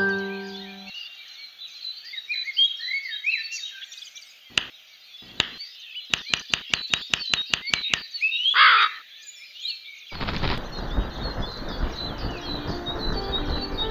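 Small songbirds chirping while a crow pecks at a walnut shell on stone: two sharp taps, then a quick even run of about ten taps, roughly five a second. A single loud caw follows, and music with sustained notes comes in about ten seconds in.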